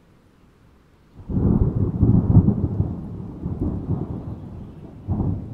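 Thunder rumbling in a rainstorm. A low rolling rumble breaks in suddenly about a second in, is loudest at first and slowly dies away, and swells again near the end, over a faint hiss of rain.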